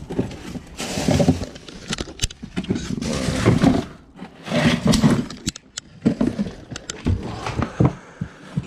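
Items in a cluttered storage unit being rummaged through and shifted: scraping and clattering in irregular bursts, with several sharp knocks.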